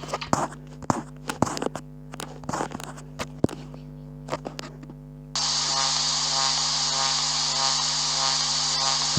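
Steady electrical hum with scattered sharp clicks and crackles. About five seconds in, a loud, even static-like hiss cuts in abruptly and holds.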